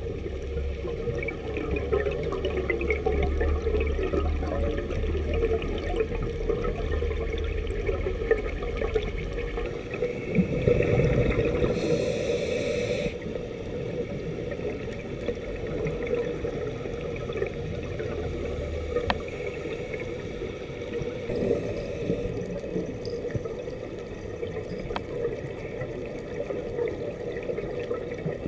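Underwater sound picked up by a diving camera: a steady, muffled rush of water, with a low hum that stops about a third of the way in and two brief hissing bursts later on.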